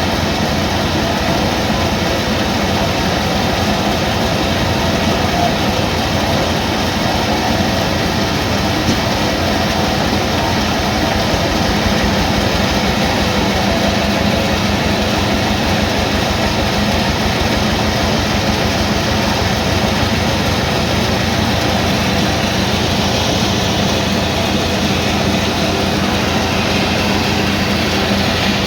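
Sawmill machinery running steadily: a constant mechanical hum over a fast, even low pulse, with no cut starting or stopping.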